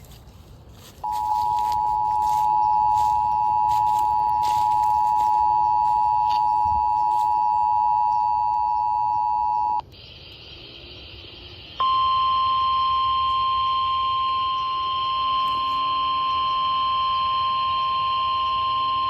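Emergency Alert System two-tone attention signal, two steady tones sounding together for about nine seconds. After a brief stretch of radio hiss, a single steady, slightly higher NOAA Weather Radio warning alarm tone starts and holds to the end.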